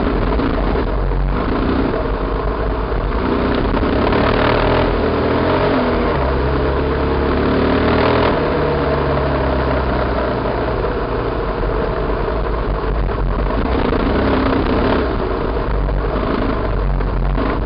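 Enduro motorcycle engine revving up and down under load as the bike is ridden hard over rough ground, with wind rushing over the microphone.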